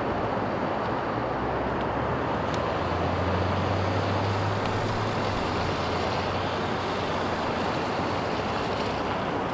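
Steady highway traffic noise, with the low drone of a passing vehicle's engine swelling from about a second in and fading by about six seconds.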